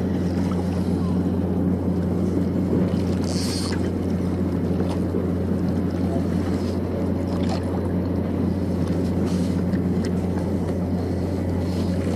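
Steady low hum of a ship's diesel engine running close by, with a few brief faint scratches over it.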